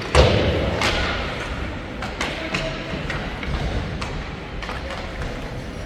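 Ice hockey play in an arena: one loud bang against the boards just after the start, with a long echo fading over the next second or two, then scattered sharp clicks of sticks and puck.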